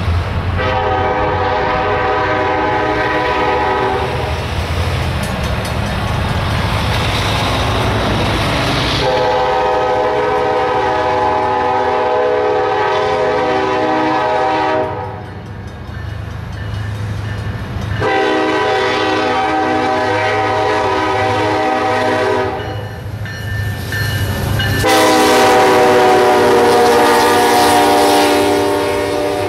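Air horn of a Union Pacific SD70ACe diesel locomotive sounding four long blasts as it approaches, the last and loudest as the locomotives pass. A low rumble from the locomotives and train runs underneath.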